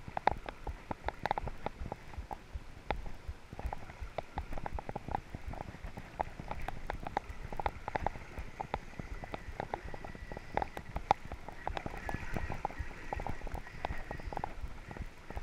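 Fast river current flowing and splashing close by, heard as a low rumble full of irregular small splashes and knocks. A faint steady high tone comes in about ten seconds in.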